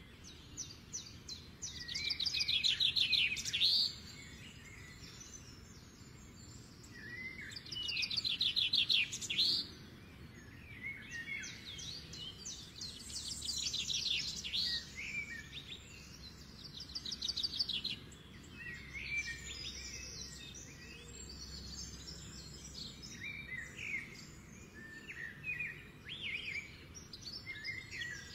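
Little bittern chicks begging at the nest as they are fed: bursts of fast, high-pitched chirps lasting a couple of seconds each, with shorter scattered calls in the later part.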